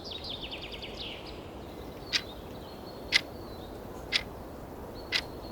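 A countdown timer sound effect ticking once a second, four ticks starting about two seconds in, over a steady bed of outdoor ambience with bird chirps in the first second.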